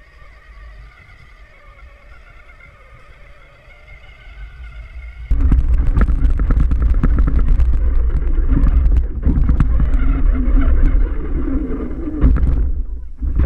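Battery-powered toy Yamaha Raptor ride-on quad driving over rough grass, picked up by a camera mounted on it: a loud rumble with rattles and knocks from the bumps. The rumble starts suddenly about five seconds in, after a quieter stretch.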